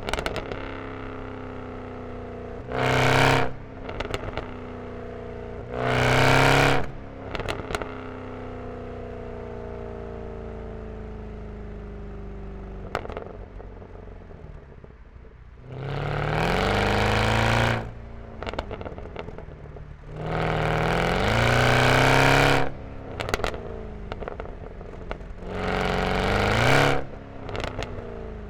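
Mercedes E63 AMG's M156 V8 through a resonator-deleted exhaust, given five hard bursts of throttle with the pitch rising, the first two short and the later three longer. After each burst come crackles and pops, and between bursts the revs sink slowly.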